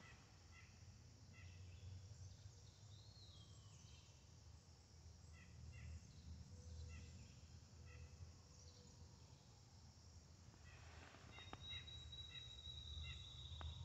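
Near-silent woodland ambience: faint, scattered short bird chirps, and near the end a thin, steady high note about two seconds long that ends in a trill, over a low steady rumble.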